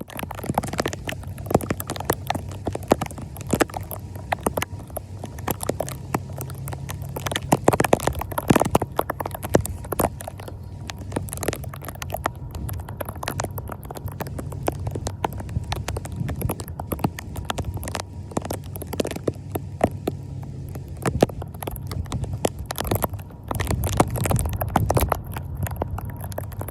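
Irregular scraping and knocking as debris is cleared from a clogged street drain, over a steady low rumble.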